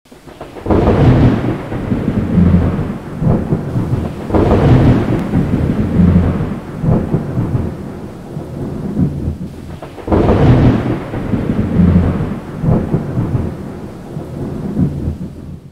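Recorded thunder sound effect: three long, rumbling rolls of thunder. Each roll swells up with crackles and booms, then dies away. The first starts just under a second in, the next a few seconds later, the last near the middle.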